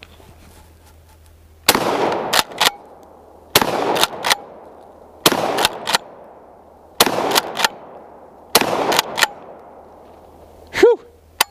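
Black Aces Tactical Marine Grade Pro Series 12-gauge pump-action shotgun firing five slugs, one shot about every 1.8 seconds. Each shot is followed by two quick clacks as the pump is worked back and forward to chamber the next shell.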